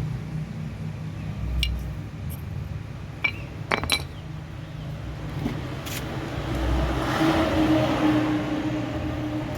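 Metal brake parts clinking sharply several times as they are handled during a front brake pad change, over a steady low hum. A louder steady noise with a held tone swells in the last few seconds, like a vehicle running close by.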